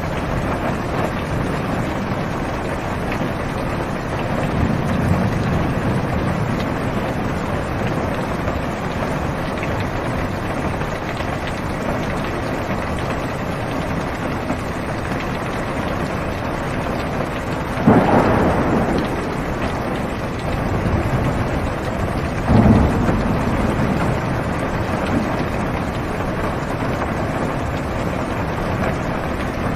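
Steady rain on a car's roof and windows, heard from inside the car. Two sharp thunderclaps about four seconds apart strike some two-thirds of the way through, each dying away over a second or two.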